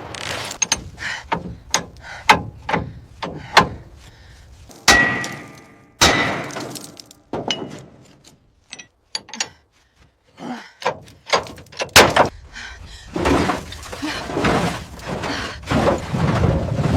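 A run of sharp knocks, clanks and clattering impacts, several a second, with longer crashing, breaking noises about five and six seconds in, a quieter gap in the middle, and denser crashing and clatter through the last few seconds.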